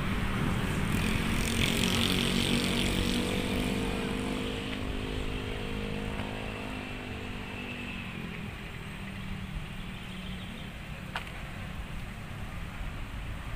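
Road traffic on a city street: the engine hum of a passing vehicle rises and fades over the first half, over a steady rumble of traffic. A small click comes near the end.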